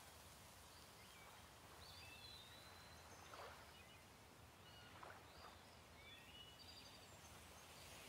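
Faint outdoor nature ambience: a soft hiss with scattered short bird chirps and calls throughout.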